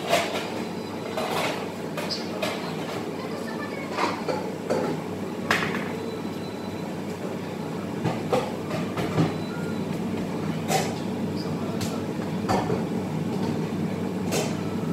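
Steady rumbling hum of kitchen equipment, with scattered sharp clicks and knocks every second or two.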